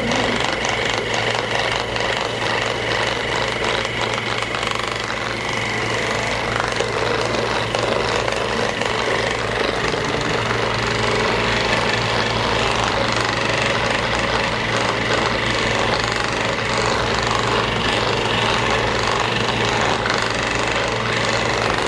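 Electric percussive massager running steadily with a fast, even hammering.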